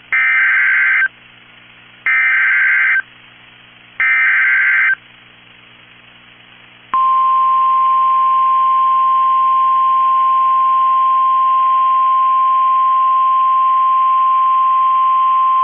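Emergency Alert System SAME header: three one-second bursts of screeching digital data, about two seconds apart, announcing a Civil Danger Warning. About seven seconds in, the single steady high alert tone of NOAA Weather Radio (1050 Hz) begins and holds, over a faint low hum.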